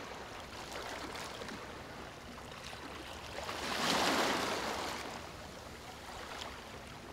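Sea waves washing ashore, a steady wash of water with one larger wave swelling and breaking about four seconds in, then drawing back.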